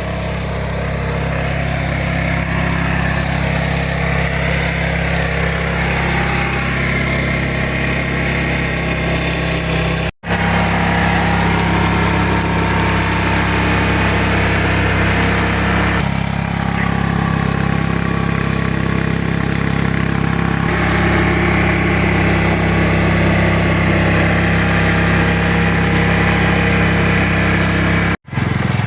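Walk-behind tractor's engine running steadily while its rotary tiller works the garden soil. The sound cuts out for an instant twice, about ten seconds in and near the end.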